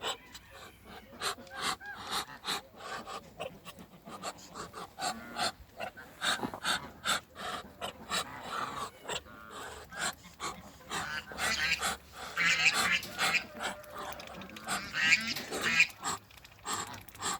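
Domestic waterfowl, including Muscovy ducks, calling with breathy huffing sounds, amid many short sharp clicks; the wavering calls grow louder about two-thirds of the way through and again near the end.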